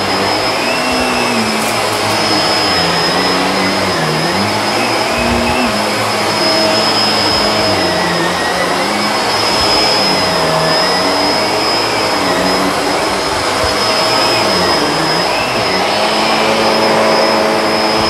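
Bissell PowerLifter Swivel Pet upright vacuum running continuously on a mattress. Its motor note dips and rises every second or two, with a steady high whine over the rush of air.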